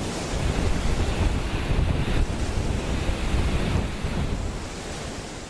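Wind buffeting the microphone over the rush of the sea. It starts suddenly and dies down near the end.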